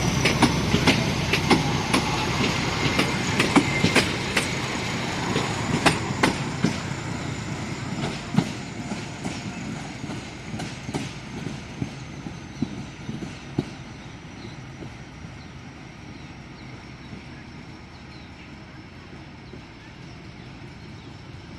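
Kangra Valley Railway narrow-gauge train running by, its wheels clacking over rail joints with a thin high wheel whine, the sound fading steadily as the train moves away; the clacks die out about two-thirds of the way through.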